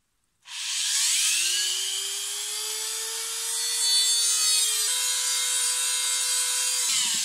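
Dremel rotary tool (180 W) switched on and running free: its motor whine rises in pitch as it spins up, holds steady, steps slightly higher about five seconds in, and drops out near the end.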